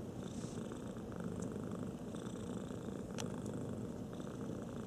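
Domestic cat purring steadily, close up.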